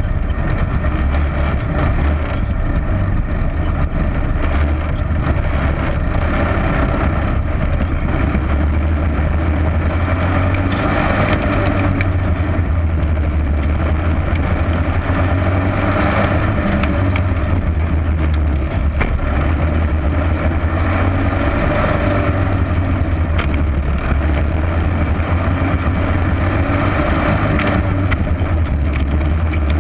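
Racing go-kart engine running hard on a dirt oval, recorded onboard, with its note rising and falling lap after lap through the turns.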